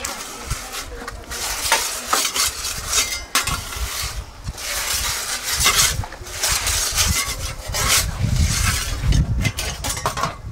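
Metal pizza peel scraping and clattering on the floor of a wood-fired oven as pizzas are turned and moved, in irregular scrapes.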